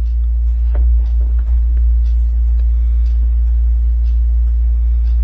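Steady low electrical hum in the recording, with a few faint ticks.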